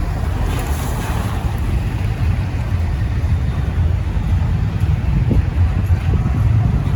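Freight train of intermodal cars rolling slowly past, a steady low rumble, with wind buffeting the microphone.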